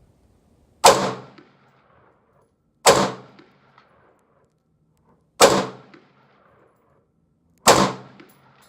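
Four single shots from a Daniel Defense Mk18 AR pistol in 5.56, fired slowly about two seconds apart, each a sharp crack that dies away within about half a second.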